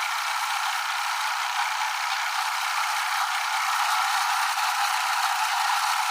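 A machine running steadily, with faint ticks that come more often in the second half.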